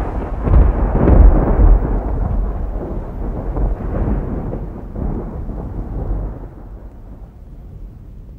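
A low rumbling noise with no tune, loudest in the first couple of seconds, then fading away steadily.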